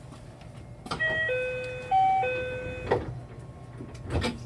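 Door-closing chime of a JR West 227 series 1000 train: a short electronic tune of a few steady notes lasting about two seconds, ending with a click, then a dull thud near the end as the doors shut, over the low hum of the idling train.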